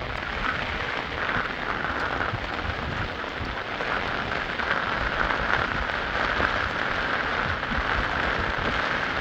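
Steady, unbroken rushing of water, loudest in a hissing middle band, with low rumble underneath.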